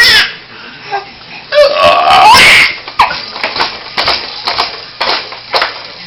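A man burping loudly and a baby laughing at it, with the laughter breaking into a string of short bursts over the second half.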